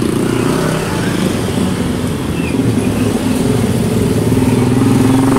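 Motorbike and scooter engines running close by in slow, jammed traffic: several low engine hums overlapping, drifting slightly up and down in pitch.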